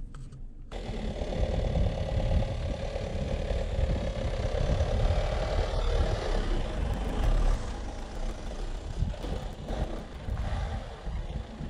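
Citroën Jumper camper van's diesel engine running at low speed as the van creeps along a muddy dirt track, with tyre and chassis noise. It gets louder about a second in, and there are a few light clicks near the end.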